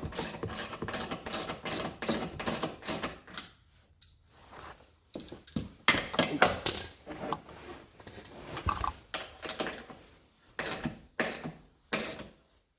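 Socket ratchet wrench clicking in quick runs as a 17 mm nut is cranked down, with short pauses between runs, the longest about four seconds in.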